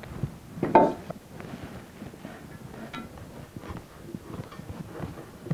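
Aluminium plates and fasteners being handled on a wooden workbench: one sharp metallic clank with a brief ring about a second in, followed by scattered light knocks and taps.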